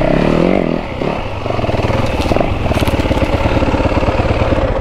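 Motorcycle engine revving under way, its pitch swinging up and down in the first second, then pulling steadily, before the level drops away sharply at the very end.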